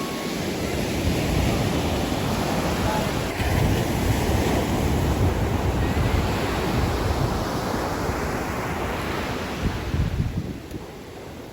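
Ocean waves breaking and washing up the shore, with wind buffeting the microphone. The rush swells over the first few seconds and dies away near the end.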